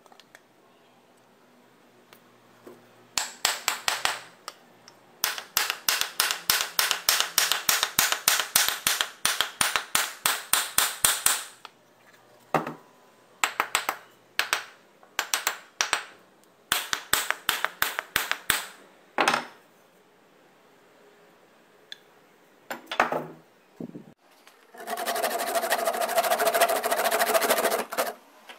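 A quick, even run of light hammer taps, about five a second, then scattered single taps. Near the end a small motor-driven power tool starts running steadily.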